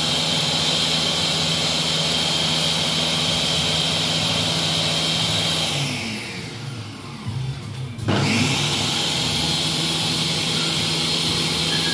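Countertop blender motor running at speed, blending a milkshake of milk and ice cream. About six seconds in it winds down, then starts up again abruptly about two seconds later.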